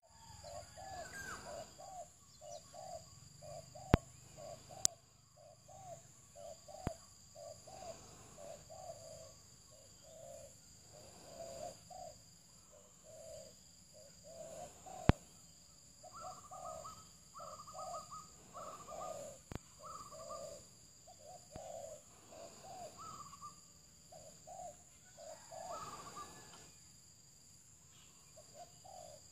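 Doves cooing: a long run of short, soft coos, about two or three a second, with higher notes joining in the second half. A steady high insect drone runs underneath, and a few sharp clicks stand out.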